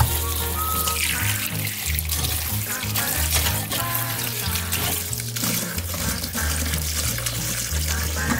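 Cold tap water running into a stainless sink and mesh strainer over blanched spinach, a steady splashing hiss. Background music with a repeating bass line plays over it.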